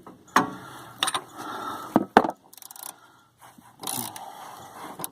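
Metal hand tools (socket, extension and cheater bar) clinking and knocking on a body bolt just broken loose, a few separate sharp clanks, the loudest a pair about two seconds in.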